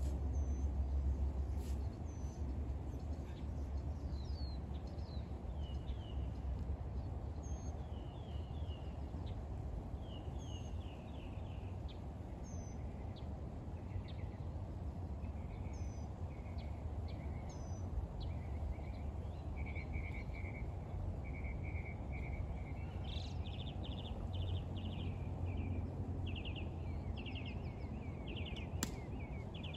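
Small birds chirping, with short high notes repeated in quick trills that grow more frequent in the second half, over a steady low background rumble. A single sharp click near the end.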